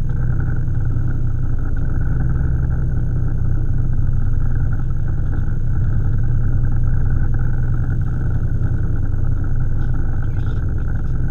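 Boat engine running steadily, a low, even drone that holds constant throughout.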